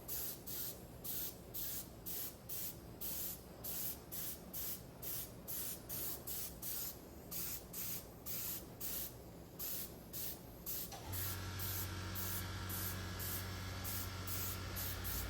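Paint spray gun hissing in short repeated bursts, about two to three a second, as thin coats of PU colour paint go onto a motorcycle body panel. About eleven seconds in, a steady low hum starts under the hissing.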